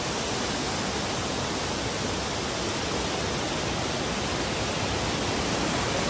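Waterfall pouring over boulders close by: a steady, loud rush of water.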